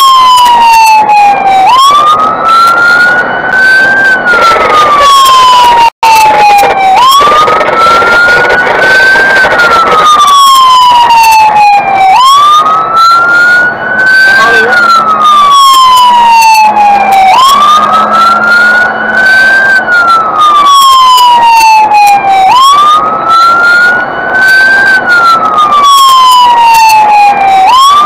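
Fire engine's siren wailing in slow cycles, about one every five seconds: each time the pitch jumps up, climbs for about two seconds, then slides down for about three. Heard loud from on board the truck as it drives at speed, with road and engine noise underneath; the sound drops out for an instant about six seconds in.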